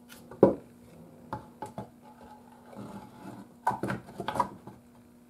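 Small loose metal screws clinking and clicking as they are picked through by hand, with one sharp knock about half a second in and a busier cluster of clinks about four seconds in. A faint steady hum sits underneath.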